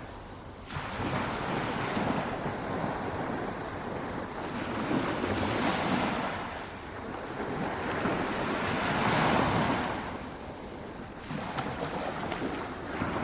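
Small, gentle ocean waves breaking and washing up a beach. The surf swells and fades about four times, every few seconds.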